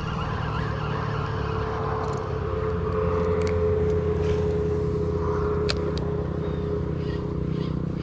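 An engine running steadily: a low drone with a steady whine above it.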